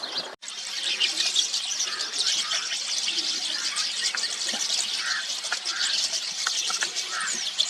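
A flock of rosy starlings chattering: many short, high, overlapping chirps and squeaks with no break, except for a brief dropout about half a second in.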